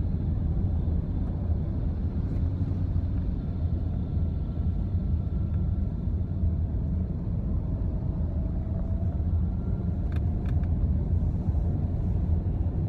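Road and engine noise inside a moving car's cabin: a steady low rumble, with a couple of faint clicks about ten seconds in.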